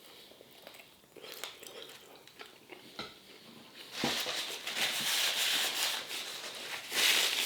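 Someone eating: quiet chewing with small mouth clicks, then about four seconds in a louder crunching of fried, battered food that lasts about three seconds.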